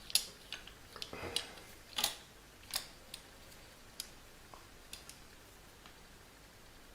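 Small metal parts of a door closer mechanism clicking and tapping as they are handled and fitted by hand: a string of sharp clicks in the first three seconds, then a few fainter ticks.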